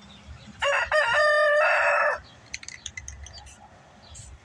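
A rooster crowing once: a single loud, pitched call about a second and a half long, starting about half a second in and cutting off sharply.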